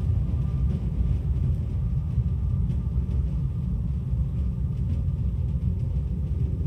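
Steady low rumble, dense and unbroken, with almost all of its energy in the deep bass.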